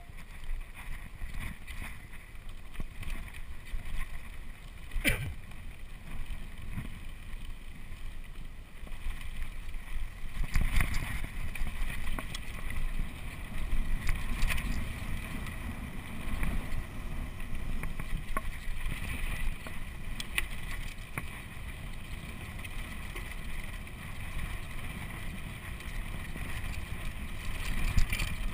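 Mountain bike rolling over a rough dirt trail: tyres on loose dirt and the bike rattling and knocking over bumps, with wind rumbling on the microphone. A sharp knock about five seconds in.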